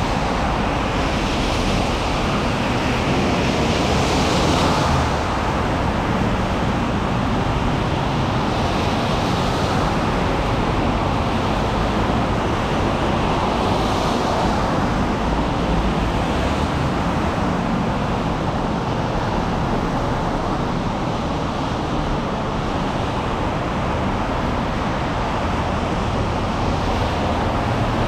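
Rain and traffic on a wet city street: a steady wash of noise, with tyre hiss swelling and fading as cars pass every few seconds.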